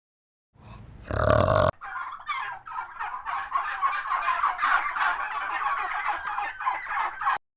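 Turkeys gobbling: a rapid rattling run of calls lasting several seconds, after a short lower animal call about a second in.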